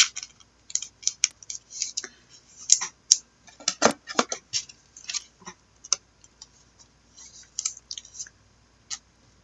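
Small handling noises, most likely trading cards being handled: irregular light clicks and short scrapes, with a sharper knock about four seconds in.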